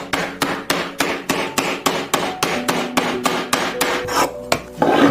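Rapid, regular hammer strikes on wood, about four a second, over faint background music. A louder, longer noisy burst comes near the end.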